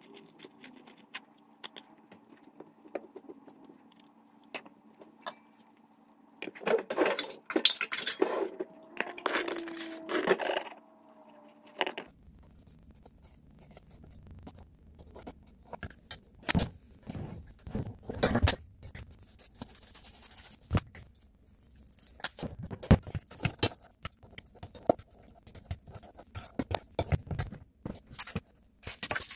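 A metal fork scraping cooked spaghetti squash strands out of the shell, with irregular clinks and taps against a stainless steel mixing bowl.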